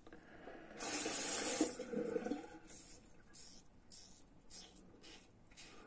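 A tap running briefly about a second in, then short scraping strokes of a safety razor with a Feather blade cutting stubble through the lather, about two a second.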